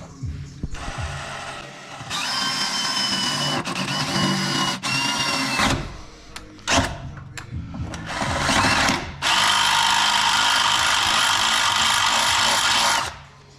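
Power drill boring a bolt hole for side skirt mounting, running with a steady whine in several bursts, the longest in the last few seconds.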